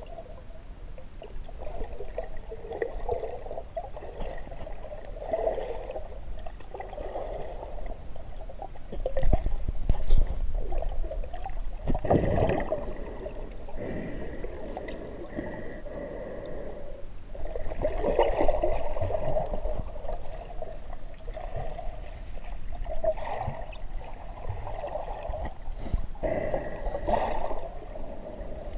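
River water heard underwater through a GoPro's waterproof housing: a muffled, swelling rush and gurgle, with a few dull bumps, the loudest about twelve seconds in.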